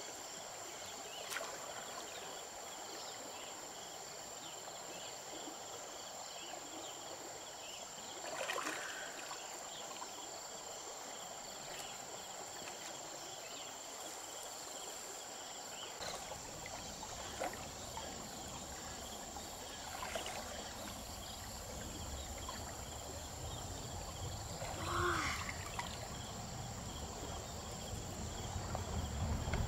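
Water sloshing and splashing as a person wades knee-deep in a shallow river and reaches into it, with two louder splashes, about a third of the way in and near the end. A steady high insect drone runs underneath, and a low rushing noise comes in suddenly about halfway.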